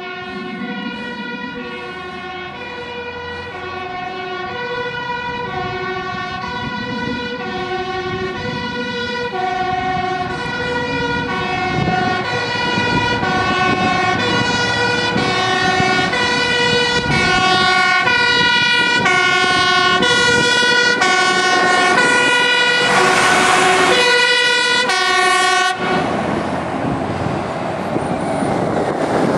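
Fire engines' two-tone sirens alternating high and low, about one cycle a second, growing louder as the trucks approach. Near the end the siren stops abruptly and the passing fire truck's engine and road noise take over.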